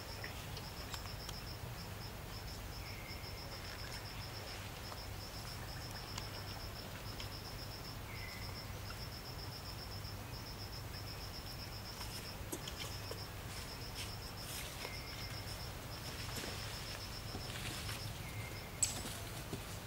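An insect chirping in a fast, high-pitched pulsing trill, broken into runs of about a second, over a steady low forest hum. There are a few short faint chirps lower in pitch, and a sharp click near the end.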